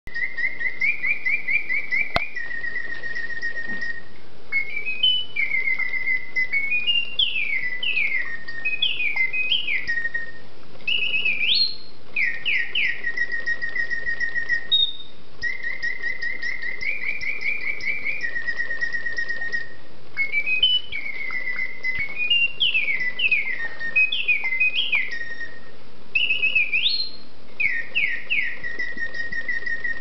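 Karl Griesbaum singing bird automaton whistling its mechanical birdsong from its bellows-driven piston whistle: trills held near one pitch, quick falling and rising glides and chirps. The song runs through once, pauses briefly about halfway, and repeats the same sequence.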